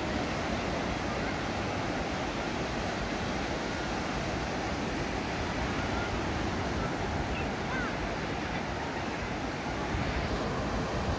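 Steady rushing noise with no speech.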